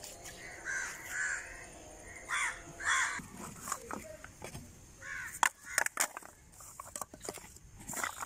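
Crows cawing several times in the first three seconds. After that, hollow knocks and clatter from dry coconut shells being picked up and knocked together by hand.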